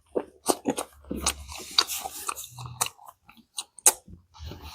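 Close-miked chewing of a steamed veg momo that has gone firm, with repeated sharp wet mouth clicks and smacks.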